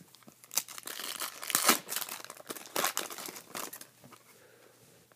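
Foil trading-card pack wrappers crinkling and crackling as they are handled, loudest about a second and a half in and dying down after about four seconds.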